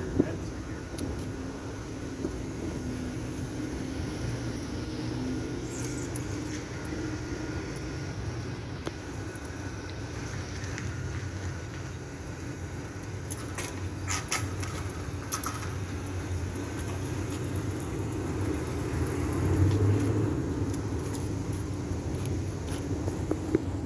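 Car cabin while driving: steady engine hum and road rumble, with a few light clicks and rattles near the middle.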